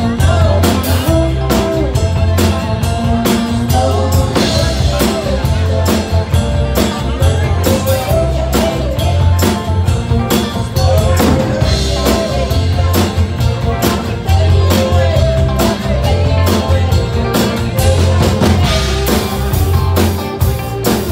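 Live rock band playing at a steady beat: drum kit, electric bass, acoustic guitar and keyboards.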